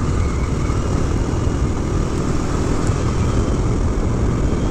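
Dual-sport motorcycle engine running steadily at riding speed on a dirt road, mixed with heavy wind rumble on the microphone.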